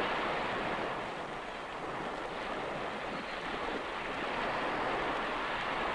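Ocean surf washing on a beach, a steady rush of waves.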